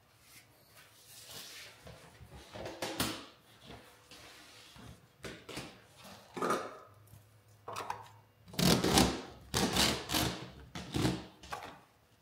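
Corrugated vacuum hose being handled and pushed onto a CNC router's dust boot: irregular scrapes, rustles and knocks, with the loudest flurry about two-thirds of the way through.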